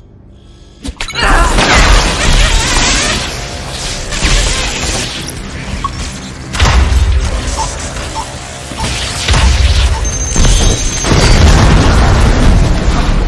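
A moment of near quiet, then about a second in, loud dramatic film music breaks in with deep booms and crashing effects, swelling several times.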